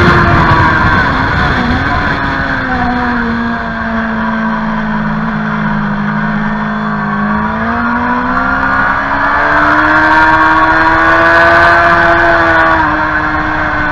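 Suzuki GSX-R 750 K6's inline-four engine on track, heard from the rider's seat: the revs fall as the bike slows into a corner, stay low through it, then climb steadily as it accelerates out, dropping again near the end.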